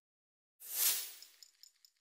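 A single whoosh a little over half a second in, trailing off into a string of small, fading metallic tinkles.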